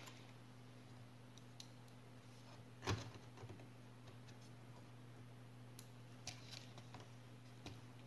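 Sparse small clicks and taps of plastic laptop parts being handled during disassembly, with one louder knock about three seconds in, over a low steady hum.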